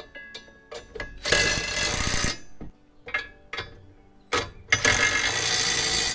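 DeWalt 20V cordless impact driver hammering on a bolt of a Curt A25 fifth-wheel hitch leg, in two runs of a little over a second each, with metal clicks and knocks between them.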